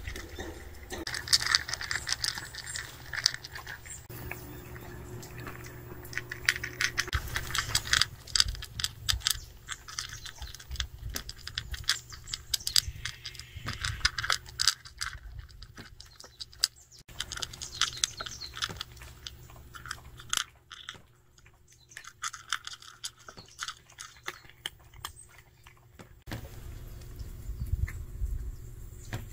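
A cat crunching dry kibble from a ceramic bowl: a quick, uneven run of small crunches and clicks. The crunching stops a few seconds before the end, when the cat has finished eating.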